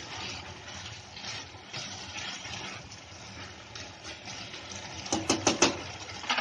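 Wooden spatula stirring a bubbling chicken stew in a nonstick pan, a wet sloshing and scraping, then four quick sharp taps about five seconds in.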